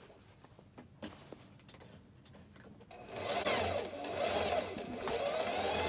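Singer electric sewing machine stitching through fabric. It starts about halfway in and runs on steadily, its speed drifting slightly up and down as the cloth is fed through. Before that come only a few faint clicks.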